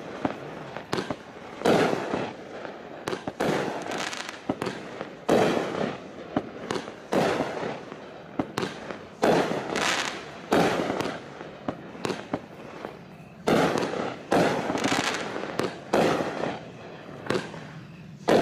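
200 g consumer fireworks cake (Raccoon Fireworks Viper Strike) firing shot after shot, about one to two a second at an uneven pace. Each shot gives a sharp bang that trails off in a short rushing hiss.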